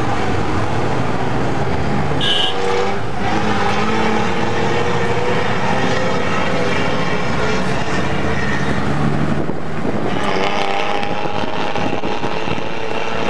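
Traffic and engine noise heard from inside a moving taxi: steady engine and road sound, with a brief high beep about two seconds in.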